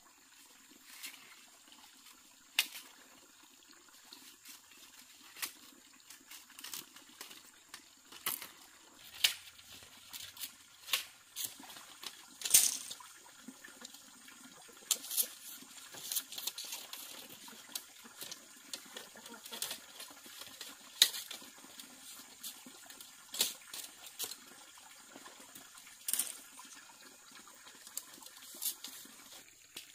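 Water splashing and trickling in irregular small splashes, a few each second, with a few louder splashes scattered through.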